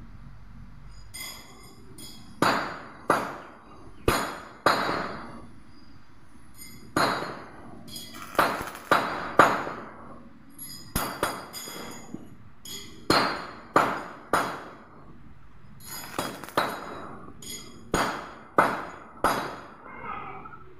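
Hollow steel grill tubing being struck: sharp metallic knocks, each ringing briefly, coming irregularly about once a second and often in twos or threes.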